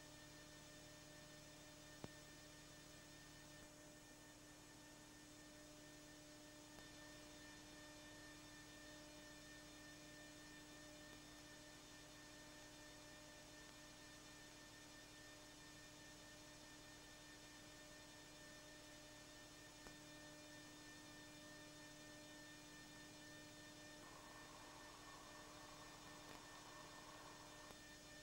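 Near silence with a faint steady electrical hum, a few even tones, and one faint click about two seconds in.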